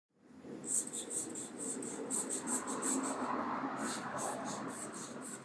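Black chalk scratching on a wall in quick, uneven strokes as it draws.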